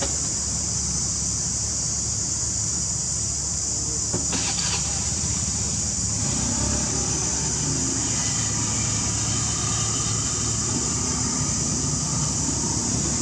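Steady background noise: a high, even hiss over a low rumble, with a brief rustle about four seconds in.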